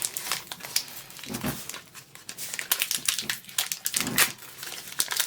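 Chocolate bar wrapper being opened by hand: a run of crinkling and crackling with some tearing.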